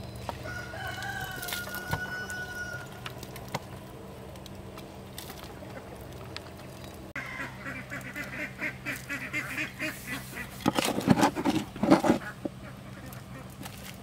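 A rooster crows once in the background near the start. Later comes quick rough scraping, then a loud cluster of knocks and rustles as shovelfuls of soil go into split bamboo pipes.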